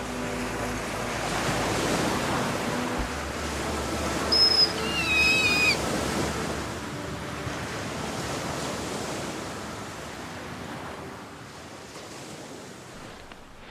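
Ocean waves washing steadily, slowly fading toward the end. A short high-pitched call with a falling pitch cuts in about four to six seconds in.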